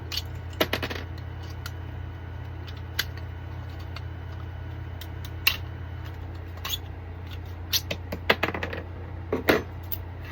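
Hard plastic 3D-printed parts clicking and snapping as they are handled, with irregular sharp clicks, a quick cluster about a second in and several more near the end, over a steady low hum.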